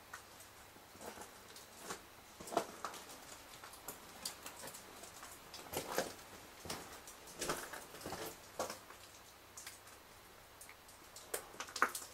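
Faint, uneven footsteps scuffing and clicking, a dozen or so scattered steps with no regular stride.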